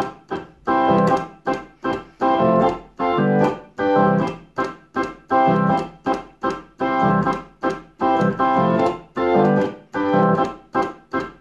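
Electric organ playing a two-handed ska rhythm: short offbeat chord stabs alternating with longer, fuller chords over a low note, in a steady pattern of about one pair a second.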